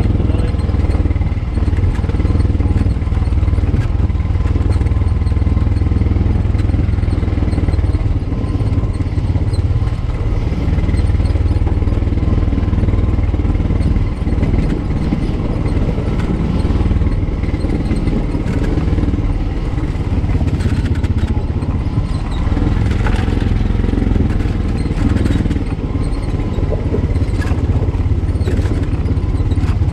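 Engine of a 2021 Honda Pioneer 520 side-by-side, a single cylinder, running steadily as it drives over rough ground, with occasional rattles of the body.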